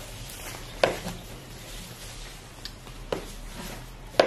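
Hands unwrapping a product's packaging, with a few sharp clicks or snaps: about a second in, around three seconds, and again near the end.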